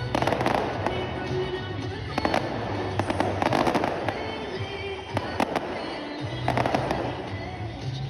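Fireworks going off in clusters of bangs and crackles, several volleys in a few seconds, with music playing underneath.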